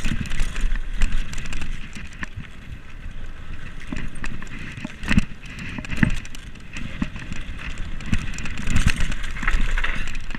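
Commencal Meta SX2 mountain bike descending a dirt trail: knobby tyres rolling and crunching over dirt and gravel, with irregular knocks and rattles from the bike over bumps. Wind buffets the microphone with a low rumble.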